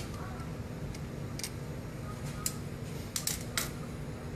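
A few sharp, irregular clicks and taps from small parts and tools being handled at a machine, over a steady low shop hum.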